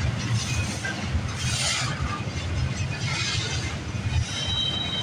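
Loaded freight flatcars rolling through a road crossing: a steady low rumble of steel wheels on rail, with two swells of hiss. Near the end comes a brief high squeal of wheels on the rail.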